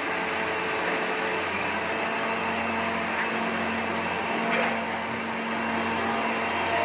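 Steady mechanical hum and hiss of room ventilation in a large kitchen, with a faint clink or two of utensils.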